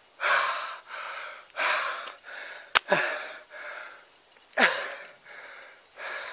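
A man panting hard, out of breath after climbing a long flight of steep stairs: heavy gasping breaths about once a second, two of them sliding down into a low groan. One sharp click comes nearly halfway through.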